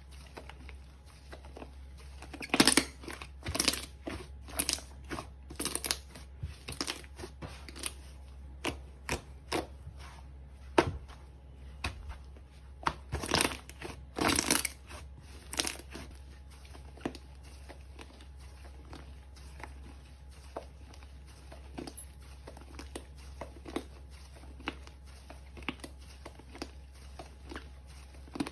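Slime being squeezed and pulled by hand, making irregular crackles, pops and squishes. A run of louder crackles fills the first half, and the rest is sparser and quieter.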